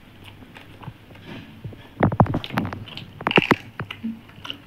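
Close-up mouth sounds of people eating rice and curry by hand: chewing with sharp wet smacks and clicks. These come in two clusters, about two seconds in and again about three and a half seconds in.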